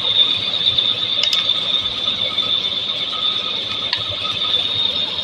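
Drill machine running with a steady high-pitched whine and a mechanical rattle, with a few faint clicks.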